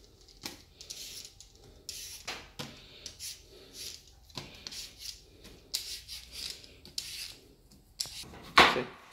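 Y-shaped vegetable peeler scraping the skin off a raw potato in quick, repeated short strokes, with one louder stroke near the end.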